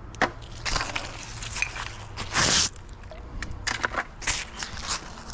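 Footsteps crunching and rustling through dry fallen leaves, irregular, with one louder rustling crunch about two and a half seconds in.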